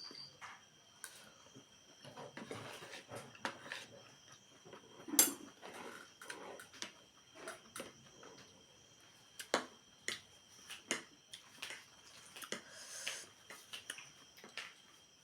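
Close-up eating sounds: irregular crunches, smacks and mouth clicks, with one sharp crack about five seconds in. Crickets trill steadily in the background.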